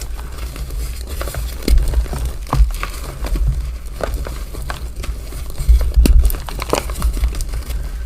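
Black gym chalk being crushed, crunching and crumbling in irregular crackles and snaps.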